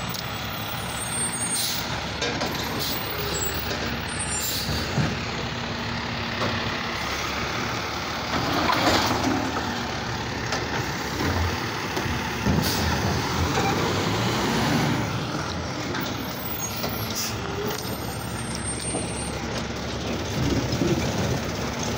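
Automated side-loader garbage truck running, its hydraulic grabber arm lifting and emptying a wheeled trash cart into the hopper. There is a rush of air-brake hiss about nine seconds in, and sharp knocks of the cart and arm.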